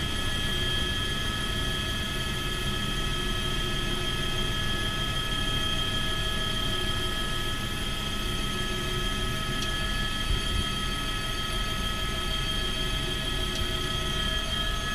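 Helicopter turbine engine and rotor running steadily, heard from inside the cabin: a constant whine of several high tones over a low rumble.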